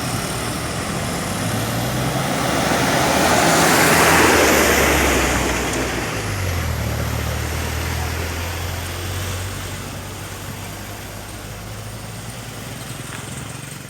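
Bus diesel engine running as a vehicle passes close, the noise swelling to its loudest about four seconds in and then fading. The engine note steps up in pitch about six seconds in.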